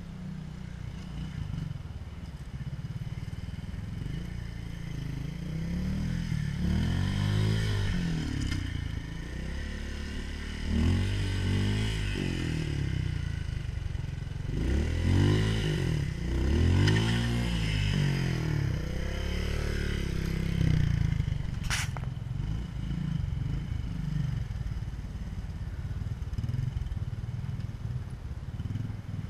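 Trials motorcycle engine being blipped in a run of short revs that rise and fall as the bike climbs over boulders, settling back to a low running note afterwards. A single sharp knock comes about three-quarters of the way through.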